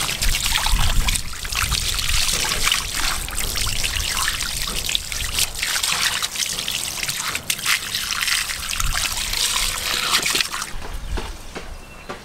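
Water running from a garden hose, splashing over whole trout and onto brick paving as they are rinsed by hand. A steady splashing hiss that stops near the end.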